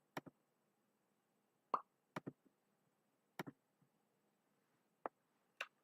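Handling noise at a computer: a few short clicks and knocks, some in quick pairs, spaced a second or so apart, between stretches of near silence.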